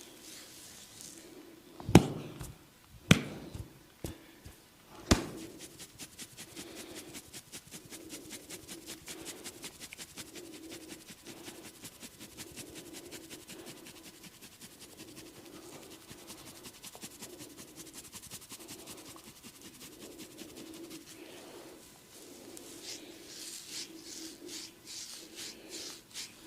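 Hands striking a person's head and shoulders in an Indian head massage: three sharp slaps, then a long run of fast, even tapping strokes.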